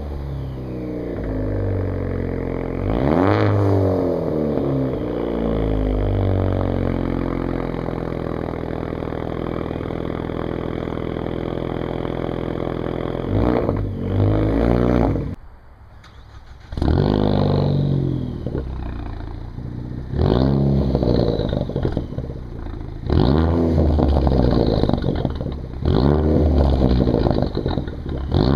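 Straight-piped exhaust of a 2013 Ford Focus ST's turbocharged 2.0-litre four-cylinder, with resonator and muffler removed: revved once, then idling steadily with a short blip. After a brief drop about halfway, a run of sharp throttle blips comes roughly every three seconds, with a turbo whistle rising and falling on each.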